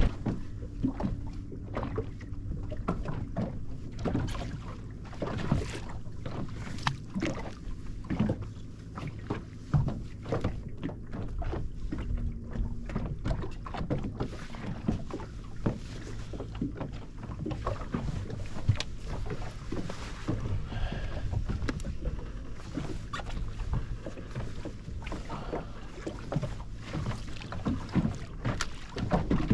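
Small waves slapping against the hull of a drifting inflatable boat, with many short knocks and splashes over a low steady hum.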